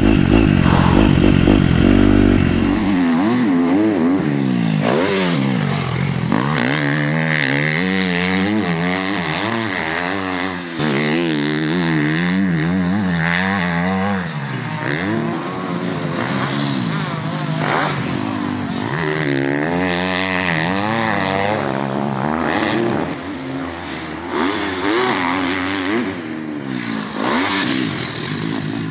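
KTM motocross bike's engine revving up and down as it is ridden around the track, its pitch rising and falling over and over with the throttle and gear changes. It is close and heavy for the first few seconds, then heard from farther off, beside the track.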